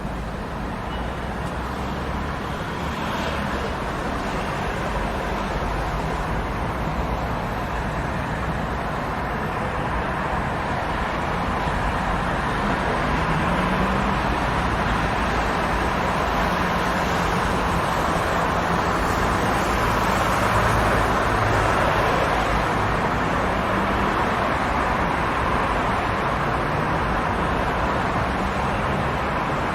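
Busy city street ambience: steady road traffic, cars passing in a continuous wash of engine and tyre noise that swells slightly toward the middle.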